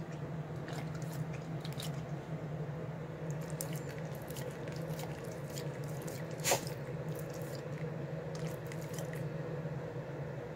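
Dog's wet mouth noises, small licking and smacking clicks scattered throughout, with one sharper click about six and a half seconds in. A steady low hum runs underneath.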